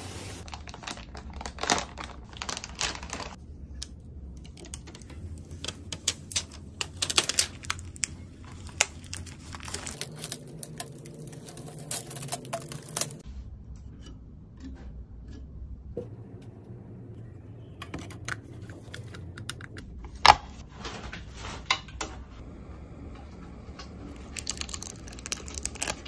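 Cardboard graphics card box and packaging being handled: irregular clusters of clicks, taps and rustles, with one sharp knock about twenty seconds in, over a low steady hum.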